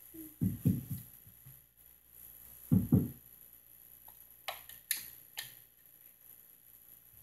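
Plastic toy pieces handled in a plastic dollhouse: a few dull knocks, then three quick sharp clicks about halfway through.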